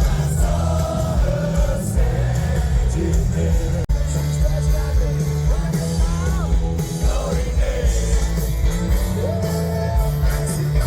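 Rock music with a singer over bass and drums, with a brief cut in the sound about four seconds in.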